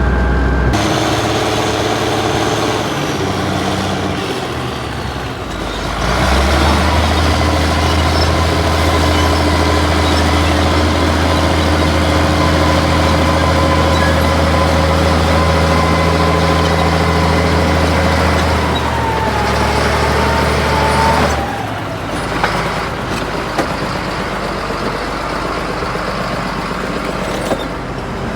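Heavy diesel engine running steadily, its speed and loudness stepping up about six seconds in and dropping back to a lower note about 21 seconds in.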